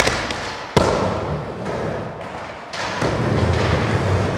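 Skateboard wheels rolling on a wooden miniramp with a low rumble. A sharp clack of the board hitting the ramp comes about three-quarters of a second in. The rumble builds again a little before three seconds in.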